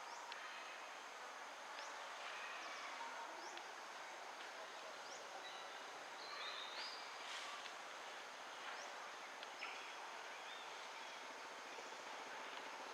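Faint outdoor natural ambience: a steady hiss with scattered short, high chirps, as of small birds, a few of them clustered about six to seven seconds in.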